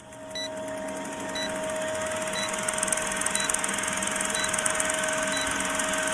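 Film-countdown sound effect: an old film projector running with a fast, even clatter and a steady hum, a short beep once a second as the leader counts down. It fades in over the first second.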